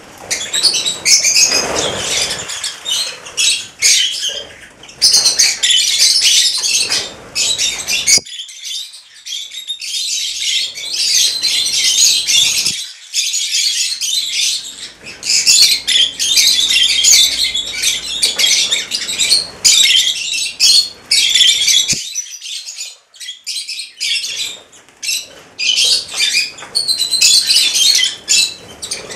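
A flock of rosy-faced lovebirds chattering, a dense run of shrill, overlapping calls with a few short lulls.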